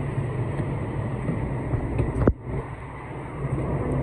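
Steady low rumble of a moving vehicle, with a sharp click a little over two seconds in, after which the rumble is quieter for a moment before rising again.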